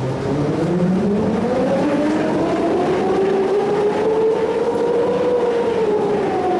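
Cat exercise wheel spinning up as a cat runs in it: a whirring rumble whose pitch rises steadily for about five seconds, then falls a little near the end.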